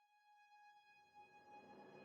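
Background music fading in from silence: a sustained ringing tone with overtones, swelling louder, with a low hum joining about a second in.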